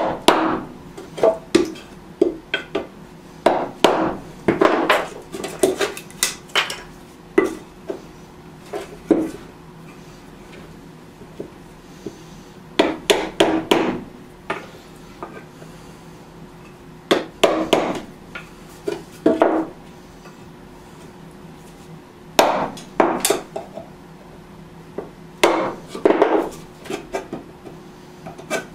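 Hammer striking a wood chisel to cut a notch in a piece of framing lumber: groups of sharp knocks, several blows in quick succession, with pauses of a few seconds between groups.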